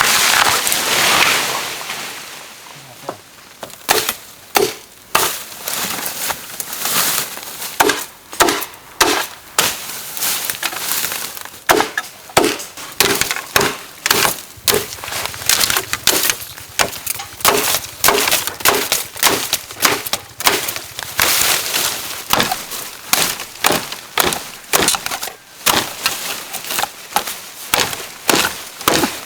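Bamboo being chopped, with sharp, regular strokes about one or two a second, after a brief rustle at the start.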